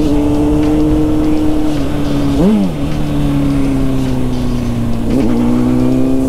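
Motorcycle engine running under way, its pitch easing slowly downward. Quick revving rises and falls come at about two and a half seconds and again just after five seconds.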